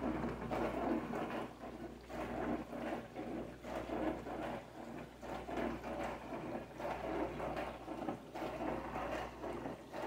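HAVA R01 compact countertop dishwasher running its wash cycle: water spraying and splashing against the dishes and glass door, rising and falling in uneven surges, with a low steady hum underneath.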